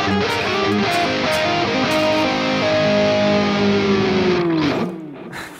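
Two electric guitars jamming together, with sustained notes and chords ringing. Near the end a held note slides down in pitch and the playing dies away about five seconds in.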